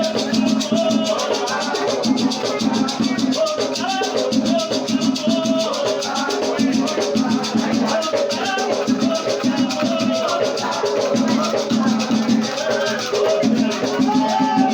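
Batuque ritual music: rattles shaken in a fast, even rhythm under singing voices.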